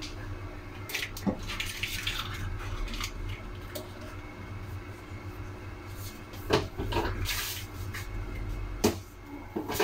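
Off-camera kitchen clatter: scattered knocks and clinks of kitchenware or a cupboard, sharpest about a second in, at about six and a half seconds and near nine seconds, with short rattles in between, over a steady low hum.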